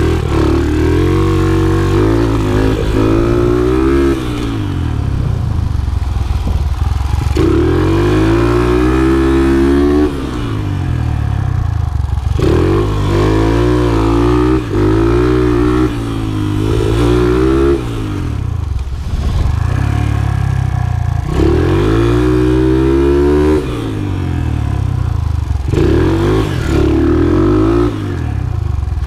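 Small dirt bike engine of Colin Edwards' TTR-based "Mad Dog" mini flat-tracker, ridden hard around a dirt oval: it revs up on the throttle and drops back again every few seconds as the rider goes through the turns.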